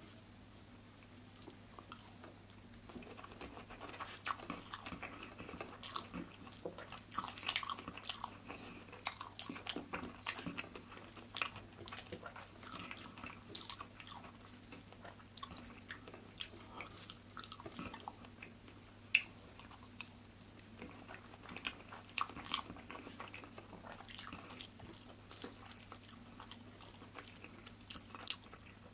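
Close-miked eating of rice and curry by hand: wet chewing and lip-smacking with many small clicks, and fingers squishing and mixing rice on the plate. Quieter for the first few seconds, then busy, with a faint steady low hum beneath.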